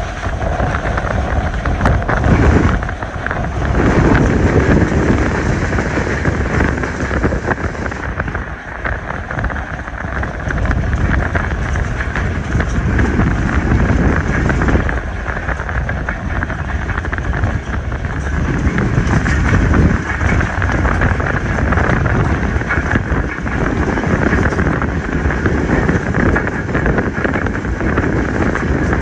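Passenger train running along the line, recorded from on board: a steady rumble of the train and its wheels on the track, with wind buffeting the microphone in gusts.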